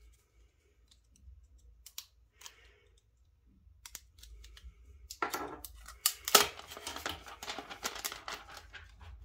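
Clear plastic protective sleeve being worked off a small aluminium device. A few light clicks and taps come first, then from about five seconds in a louder, continuous crinkling and rustling of the plastic.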